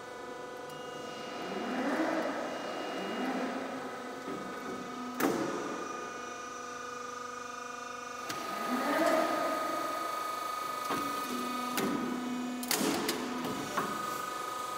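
Downspout roll forming machine running with a steady motor whine. Twice, a rising hum settles into a steady tone and ends in a sharp bang as the hydraulic cutter cuts off the formed galvanized steel pipe.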